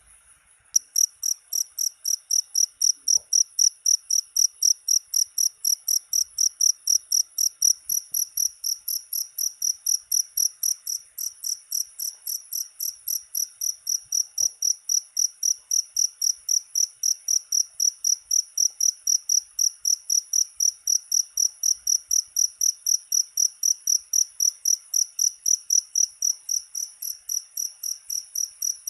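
Cricket chirping in a fast, even rhythm, about three to four high-pitched chirps a second, starting about a second in.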